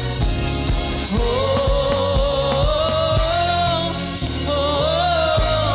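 Live gospel worship song: a singer holds long notes over a band with bass, keyboards and drums.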